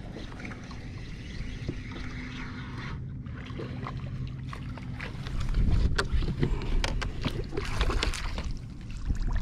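A hooked fish splashing and thrashing at the surface beside a kayak while it is reeled in, with water sloshing against the hull and reel and rod handling clicks. The splashing gets louder about halfway through as the fish reaches the boat.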